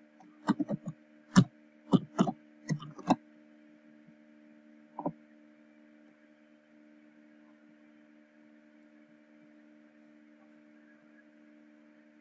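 Computer keyboard keystrokes: a quick run of sharp taps as a search term is typed, then a single click about five seconds in. A steady low electrical hum runs underneath.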